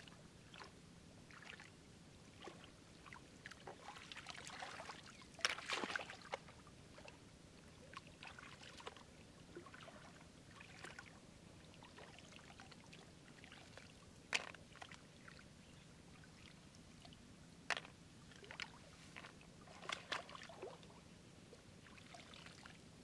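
Gloved hands sloshing and splashing in shallow muddy water, groping for snails. Scattered small splashes, a longer burst of splashing about five seconds in, and a few sharp clicks later on.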